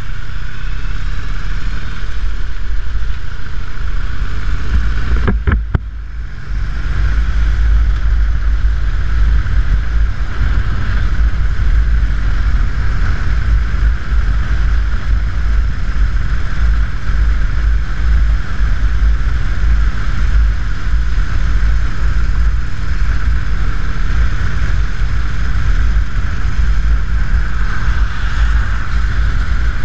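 Harley-Davidson Dyna Super Glide's V-twin engine running steadily at road speed, with heavy wind rumble on the handlebar-mounted camera's microphone. The sound drops briefly about six seconds in, then carries on steadily.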